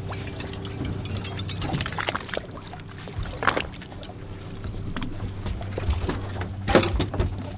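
Boat engine idling as a steady low hum, with water splashing and slapping alongside the hull and a few sharp splashes or knocks, the loudest near the end.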